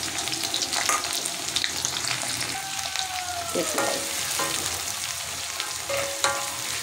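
Sliced onion sizzling in hot oil in an aluminium kadai, stirred with a spatula that scrapes and taps against the pan now and then.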